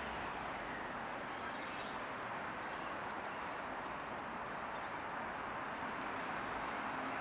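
Steady outdoor city ambience: a continuous wash of distant road traffic, with a faint high whine a couple of seconds in.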